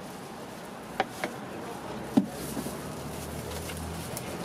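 Three sharp knocks of a knife striking a cutting board as a melon is cut: two close together about a second in, and a louder one a second later. A low engine hum builds near the end.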